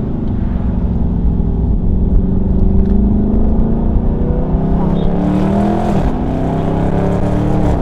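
Dodge Charger Scat Pack's 6.4-litre HEMI V8 accelerating, heard from inside the cabin: the pitch rises steadily and drops at two upshifts, about two seconds in and about six seconds in.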